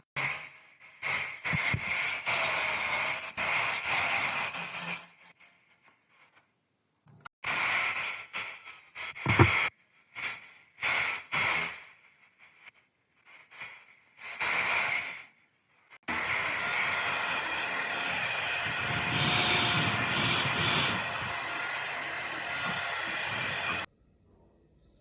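Abrasive passes over a rusty steel knife blade, hissing. A series of stop-start strokes of a second or two is followed by one unbroken run of about eight seconds that stops abruptly.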